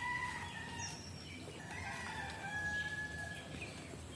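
Rooster crowing with long, held calls in the background.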